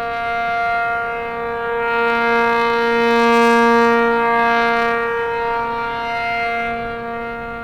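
ACA P-50 rotating outdoor warning siren sounding its steady alert, a two-tone chord of about 466 and 700 Hz held at a constant pitch. It swells louder toward the middle and then fades as the slowly rotating horn sweeps past.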